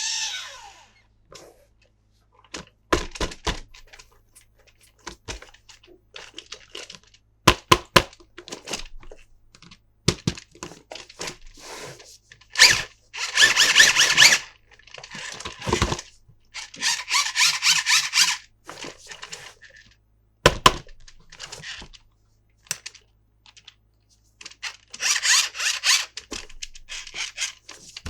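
Hands handling a plastic toy and its packaging: irregular sharp clicks and knocks, with three stretches of rustling and tearing of about a second or two each.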